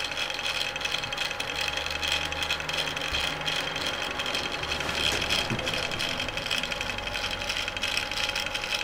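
Stepper motors of a mini drawing laser projector running, a steady fast-ticking buzz as they swing the beam through its patterns.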